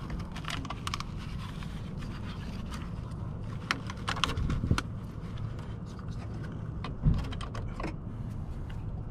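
Hand-handling noise of a plastic high-voltage cable connector and its rubber boot being worked loose from the Prius inverter: scattered clicks, scrapes and light knocks over a steady low rumble, with a dull knock about seven seconds in.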